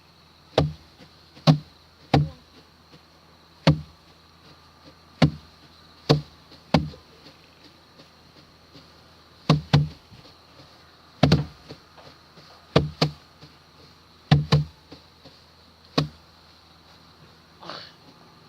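Rice sheaves beaten by hand against a wooden threshing board: about sixteen heavy knocks at an irregular pace, roughly one a second, several of them coming in quick pairs.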